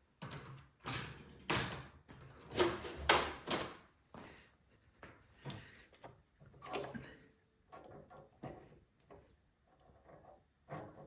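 Hands refitting the rubber fuel line onto a small generator's carburetor: several scraping, rubbing handling sounds in the first four seconds, then lighter clicks and taps of parts and tools.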